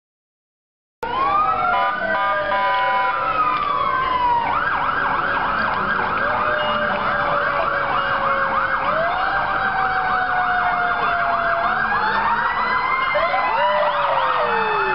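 Several fire truck sirens sounding together, starting suddenly about a second in: slow rising and falling wails overlap, and from about four seconds in a rapid yelp runs under them.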